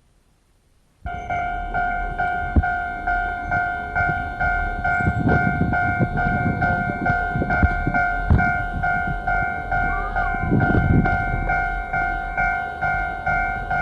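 Railway level-crossing warning bell starting about a second in and ringing steadily about twice a second, on a worn cassette-tape recording. Low rumbling and a few sharp knocks sound underneath around the middle.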